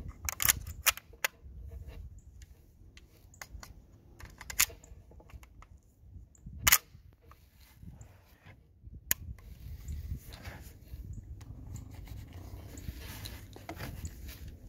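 Suppressed MP5-style carbine: a quick run of metallic clicks and clacks as the magazine is seated and the action is charged, then several single suppressed shots a couple of seconds apart, the loudest about seven seconds in.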